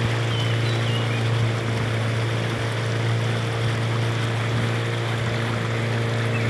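A small boat's engine running at a steady speed under way, with the wake rushing and splashing along the hull.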